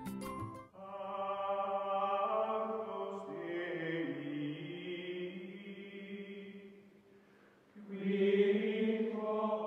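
Background music of long held, chant-like choral chords that shift pitch now and then. It fades out about seven seconds in, and a new held chord begins about a second later.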